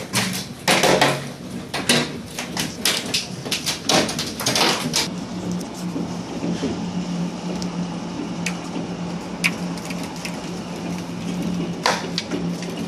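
Hailstones striking a hard surface, a dense clatter of sharp knocks for the first five seconds or so, then thinning to scattered single hits over a steady low hum, with one louder hit near the end.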